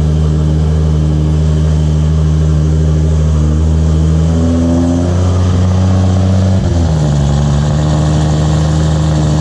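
Toyota Supra's big single-turbo 2JZ straight-six idling just after a cold start, steady and even. The idle steps down slightly about two-thirds of the way through.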